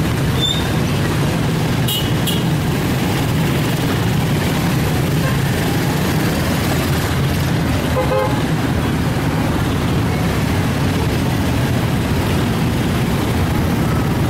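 Steady roar of road traffic, with a short vehicle-horn toot about eight seconds in.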